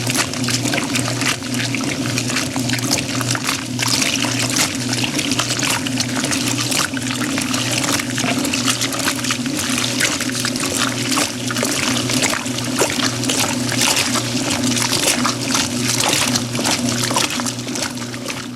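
Old-style washing machine running: a steady motor hum under water sloshing and churning in the tub, with many small clicks and knocks.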